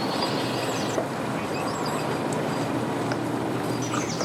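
Engines running steadily, a low even hum, with a few faint bird chirps over it.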